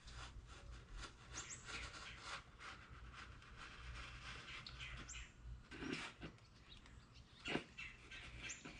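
A blade drawn along a metal straightedge, slicing through a sheet of EVA foam with soft rasping strokes and one sharper tap late on. A bird outside gives three short, high chirps.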